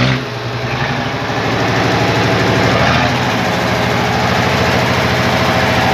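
FNM 180 truck's diesel engine running steadily near idle, dipping slightly at first and then picking up a little.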